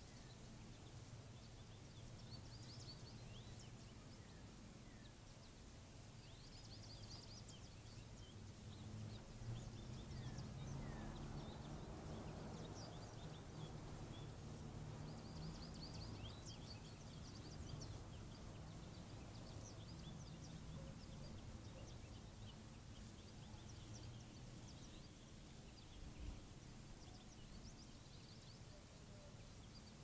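Faint backyard ambience: small birds chirping now and then, with a low steady hum that swells through the middle and fades again.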